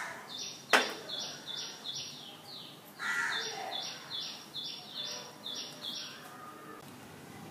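Birds calling: a small bird repeats a high, falling chirp about three times a second for about six seconds, and a harsher call comes in about three seconds in. A single sharp clink sounds just under a second in.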